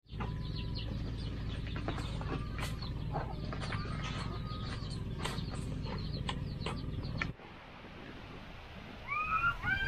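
Knife cutting into a whole jackfruit, a run of sharp knocks, with chickens and birds calling around. About seven seconds in it drops to quieter outdoor ambience, and high rising squeals start near the end.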